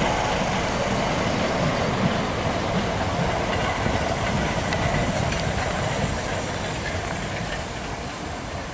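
Southeastern Class 465 Networker electric multiple units, two coupled, running past on third-rail track: a steady noise of wheels on rails with a faint steady tone over it, easing a little near the end as the train draws away.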